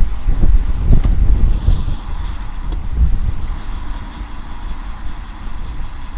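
Wind buffeting the microphone of a racing bicycle at speed, with the rear hub's freewheel buzzing as the rider coasts, twice: briefly at about a second and a half in, then again from about three and a half seconds in.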